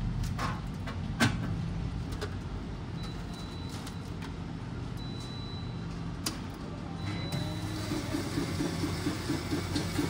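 FamilyMart self-serve coffee machine: a few sharp clicks and knocks as the cup of ice is set in and a button is pressed, the loudest about a second in. About seven seconds in, the machine starts up with a steady mechanical running sound that pulses evenly about three to four times a second as it begins making the iced coffee.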